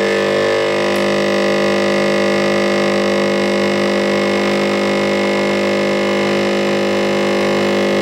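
Morphy Richards Kaffeto espresso machine's pump running with a steady, loud buzz while it brews espresso into a latte mug.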